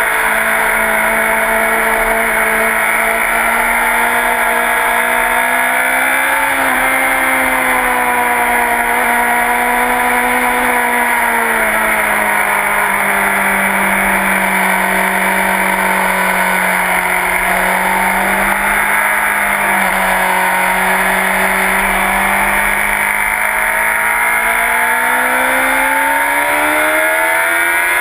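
Sport motorcycle engine running hard on a race track, heard onboard. It holds high revs, the pitch sags slowly through the middle and climbs again near the end as the bike accelerates.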